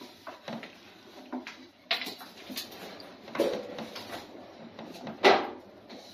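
Scattered light knocks and clatters of dough work and kindling: a long wooden rolling pin working thin dough on a wooden board, and dry twigs handled at a tandır oven. There are a few louder knocks, about two, three and a half and five seconds in.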